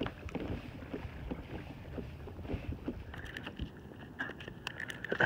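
Water lapping and knocking against a kayak hull, with wind on the microphone. A run of small sharp clicks and ticks comes in over the last couple of seconds.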